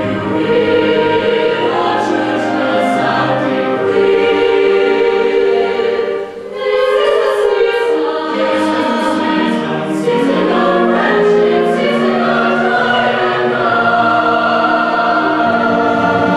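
Live music from a high school concert ensemble: slow, sustained chords that shift gradually, with a brief drop in loudness about six seconds in.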